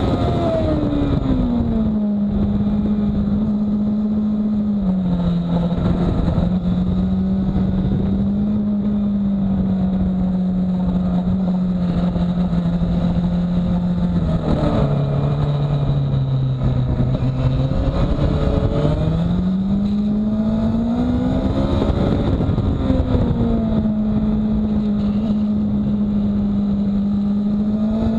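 Racing motorcycle on track, heard onboard: the engine runs with steady wind and road noise, its pitch stepping down as the bike slows into a tight corner near the middle, then rising again as it accelerates out.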